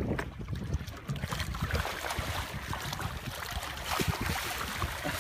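Water splashing and churning at the surface as a hammerhead shark thrashes while tearing at a hooked yellowfin tuna, with many short crackling splashes from about a second in, over a steady low rumble.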